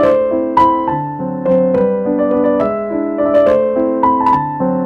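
Background piano music: a gentle melody of held notes and chords, a new note struck every half second or so.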